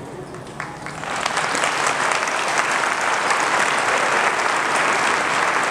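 Audience applauding: a few scattered claps, then full steady applause from about a second in.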